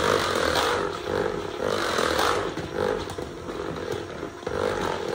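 Cordless hand mixer running, its beaters churning a thick mix of butter, shortening and peanut butter in a plastic bowl; the motor note swells and dips about once a second as the beaters work through the mix.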